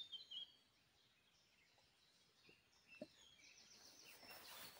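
Faint songbirds chirping and twittering at a distance, in short repeated phrases. A brief soft rustle rises near the end.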